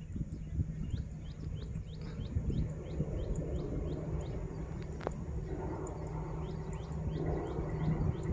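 A bird repeating a short high chirp about three times a second over a low, uneven rumble, with a broader rushing noise building in the second half.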